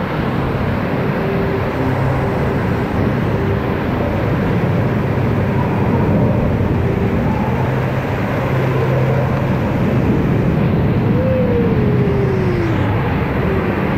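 Steady low rush of moving water inside a lazy-river cave, with fountains and a waterfall running and water lapping against a waterproof camera held at the surface.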